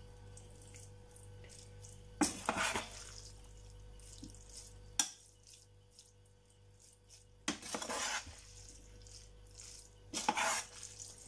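Metal spoon scraping and clinking against an enamel pot while stirring pasta and breaking up chunks of canned stewed meat. It comes in three bouts, about 2, 7.5 and 10 seconds in, with quieter stretches between.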